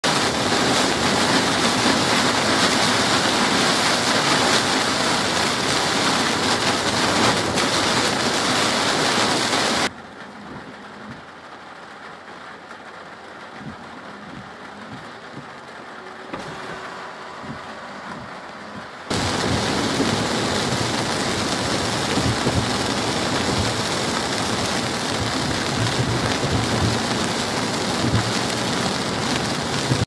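Heavy downpour, a loud steady rush of rain. For about nine seconds in the middle it drops to quieter rain with traffic on a wet road, then the loud downpour returns.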